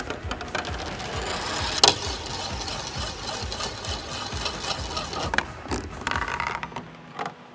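A marble rolling and rattling through the plastic and metal tracks of a marble run built from Dyson parts, a busy stream of rapid clicks, with one sharp knock about two seconds in.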